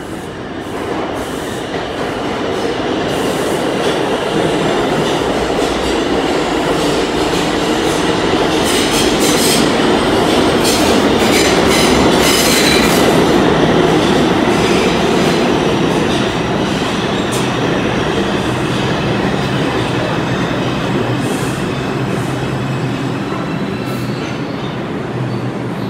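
Kawasaki R142A subway car running out of a station and picking up speed, heard from inside the car: steel wheels rumbling on the rails, growing louder over the first few seconds. A rapid clatter of wheels over rail joints comes through the middle.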